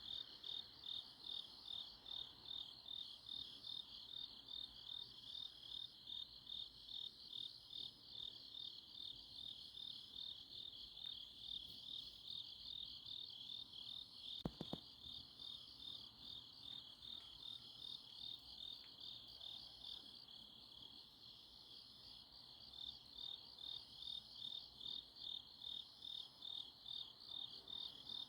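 Crickets and other grass insects chirping in a steady pulsing trill, about two pulses a second, with a fainter higher call repeating above it. One brief click sounds about halfway through.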